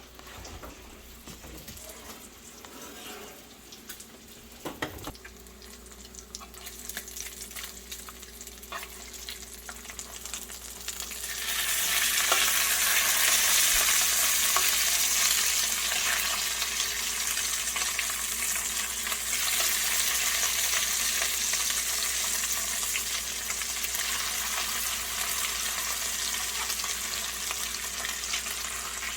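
Bacon frying in a No. 10 cast iron skillet on a gas burner: a steady sizzle with scattered pops. There is a knock about five seconds in, and the sizzle grows much louder about eleven seconds in and stays loud.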